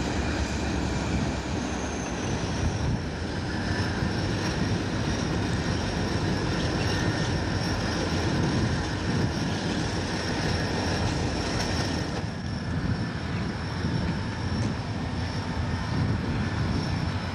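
Diesel freight locomotive of the Katy (Missouri-Kansas-Texas) railroad running steadily as it approaches on the main line.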